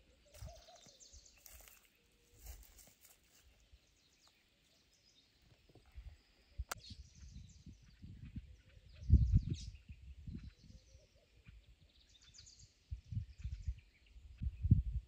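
Scattered bird chirps, with low rumbling thumps underneath, the loudest about nine seconds in.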